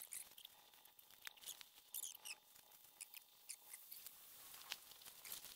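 Near silence, with faint, short high-pitched chirps and ticks scattered through it.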